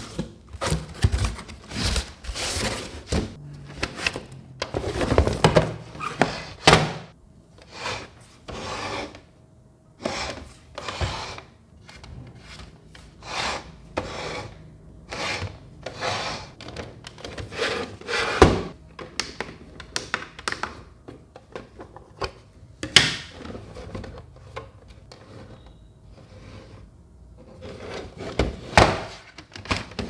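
Unboxing handling noise: cardboard flaps and panels scraping and rustling as the box is opened, then the plastic casing of a small evaporative air cooler rubbing and clacking as it is turned in the hands, with a few sharp knocks scattered through.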